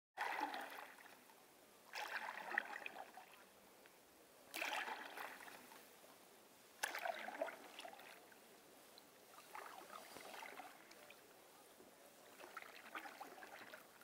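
Canoe paddle strokes through water: six rhythmic pulls, one about every two and a half seconds, each a short splash and wash of water, with a faint steady water hiss between strokes.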